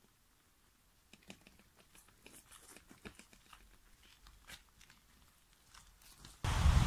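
Faint, irregular crunching of footsteps and bicycle tyres on a gravel forest track as a loaded touring bike is pushed along. Near the end it is cut off suddenly by loud wind buffeting the microphone.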